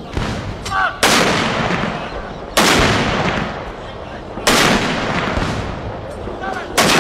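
Ceremonial field guns firing a gun salute: four heavy blasts about two seconds apart, each followed by a long rolling echo.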